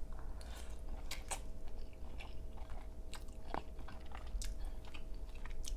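A person chewing a mouthful of creamy crawfish pasta, with irregular wet smacks and small clicks of the mouth.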